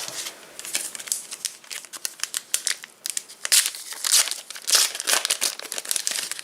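Trading card pack wrapper being torn open and crinkled by hand: a dense run of sharp crackles and rustles, loudest around the middle.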